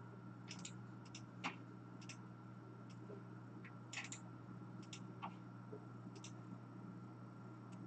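Faint, scattered clicks of a computer mouse and keyboard, about two a second and some in quick pairs, as lists are copied and pasted into a spreadsheet, over a steady low electrical hum.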